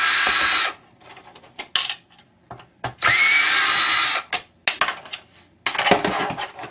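A power drill-driver running in two short bursts of about a second each, backing out the screws that hold a flat screen monitor's steel base. Each burst starts with a brief rising whine. Loose clicks and clatter follow as the screws and base are handled.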